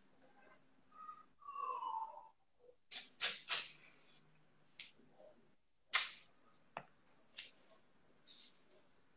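White athletic tape being pulled off the roll and torn: several short rasping rips, the loudest about six seconds in. A brief falling squeak comes in the first two seconds.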